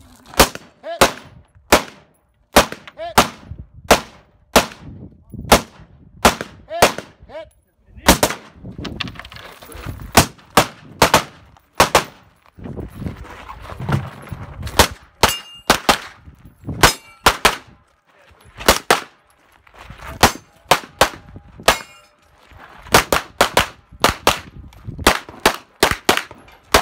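Rapid strings of gunshots as a 3-gun competitor fires a rifle and then a pistol, about one to two shots a second with short pauses between strings. Some shots are followed by brief metallic ringing, typical of steel targets being hit.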